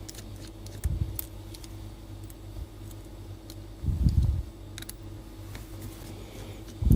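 Small scattered clicks and taps of a Torx T9 screwdriver working the side screws that hold a MacBook Air's display, with a couple of dull thumps as the laptop and tools are handled.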